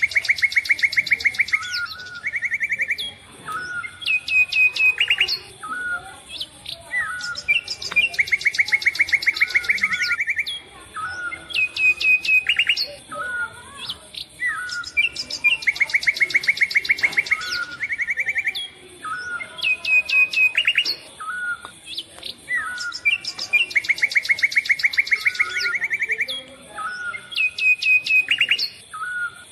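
Birdsong: short high chirps and a rapid trill, the same phrase repeating about every four seconds.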